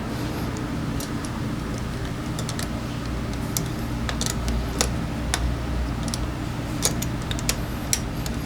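Italjet Griffon GF125 engine idling steadily after its carburetor has been cleaned, with irregular sharp clicks and taps over it.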